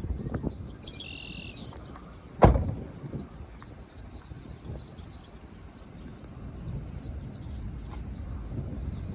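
Steady low rumble of strong storm wind, with a single sharp knock about two and a half seconds in. Faint high bird chirps come through about a second in and again near the end.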